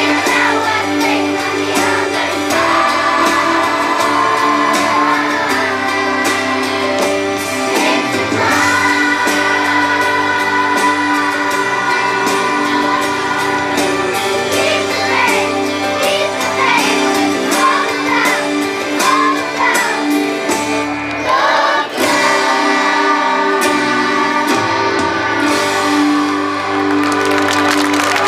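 School choir singing a song with instrumental accompaniment, voices holding long sustained notes. Applause begins right at the end as the song finishes.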